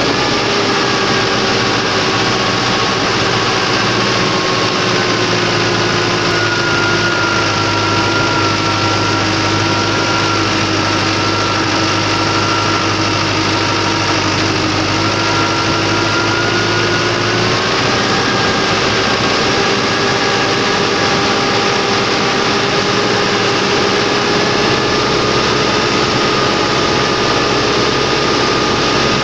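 Deutz-Fahr Agroplus 75 tractor's diesel engine running steadily while the tractor drives. Its note sags slightly in pitch for a while near the middle and picks up again about two-thirds of the way through.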